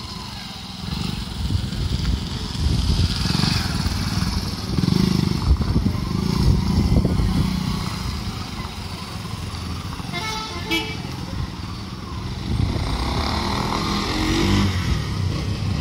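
Small motorcycle engines running and revving as riders weave slowly through a cone course. About ten seconds in there is a short horn toot.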